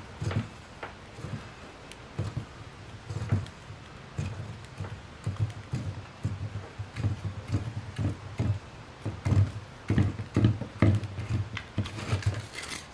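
Handling noise as fishing line is wound by hand onto a small homemade fishing-kit spool: an irregular run of soft low knocks and rubbing, two or three a second, with light clicks.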